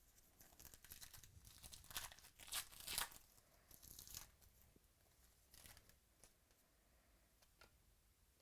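Trading card pack wrapper being torn open and crinkled: a run of short ripping, crinkling noises over the first half, then a few light clicks of card handling.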